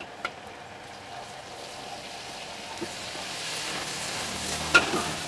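Oil sizzling in a hot wok as sliced shallots fry. The sizzle swells from about two seconds in, as chopped tomatoes go into the wok. A metal spatula strikes the wok with a sharp clang near the end.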